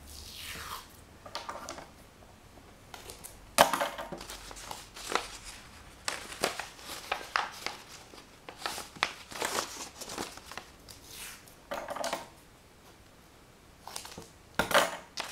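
A large strip of stiff paper crinkling and rustling as it is handled and given a half twist, with many short crackles and taps and one sharp click about three and a half seconds in. Near the end, masking tape is pulled off its roll with a louder tearing rasp.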